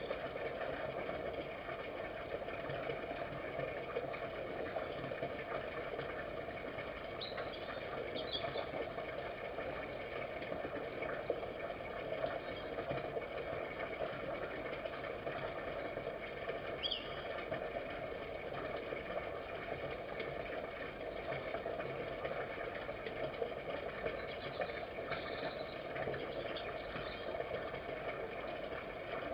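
Red fox eating from a shallow feeding dish: faint steady clicking of chewing over a constant low hum, with a few short high chirps about a third and halfway through.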